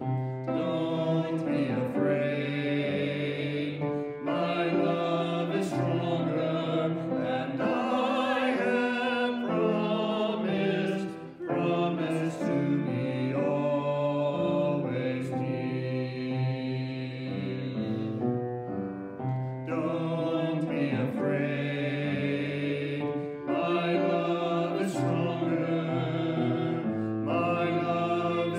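Voices singing a hymn with grand piano accompaniment, in phrases with short breaks between them.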